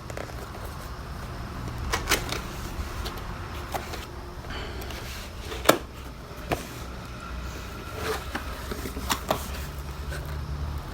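Cardboard box and packaging being opened and handled by hand: scattered taps, clicks and rustles, the sharpest knock about halfway through, over a steady low hum.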